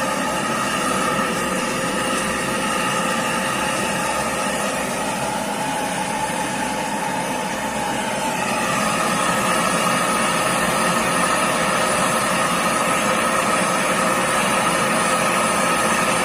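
Workshop machinery running steadily: a continuous hum with several whining tones. There is a brief shift in pitch about halfway through, and no hammer blows.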